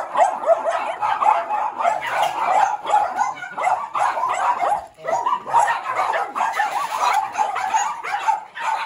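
Several small dogs and puppies barking and yapping rapidly, many short yelps overlapping, with a brief break about five seconds in.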